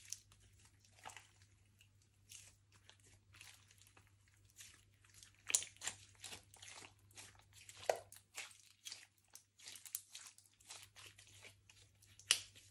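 Slime being kneaded and squished by hand, giving an irregular run of sticky crackles and small pops, a few louder ones about halfway and near the end.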